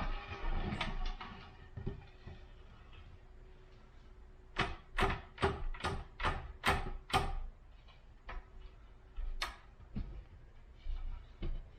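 Hard clicks and knocks as hooks and gear are handled on a handmade hanger stand while testing it: a quick run of about eight sharp clicks in under three seconds, then a few single knocks spaced out.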